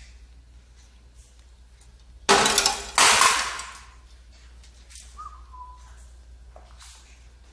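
Two loud, harsh squawks from a pet parrot in quick succession, each starting abruptly and fading within about half a second, followed by a faint short chirp.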